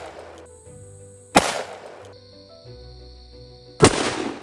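Two 12-gauge shotgun blasts from a JTS M12 AR loaded with #4 birdshot, about two and a half seconds apart, each dying away over about half a second, over background music.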